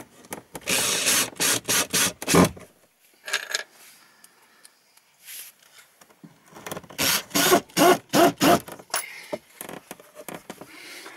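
Cordless drill-driver driving screws through a wooden batten into the wall panel in short trigger bursts. One run comes about a second in, another from about six and a half to nine seconds in.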